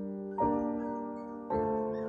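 Soft background piano music: slow chords, a new one struck about once a second and left to fade.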